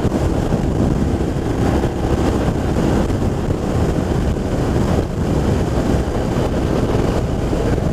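Steady riding noise from a BMW R1200RT motorcycle on the move: wind rushing over the microphone over the even drone of its boxer-twin engine and the tyres on wet road.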